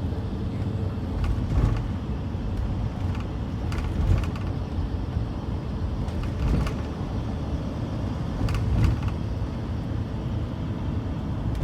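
A car driving, with steady low road rumble and several brief knocks scattered through it.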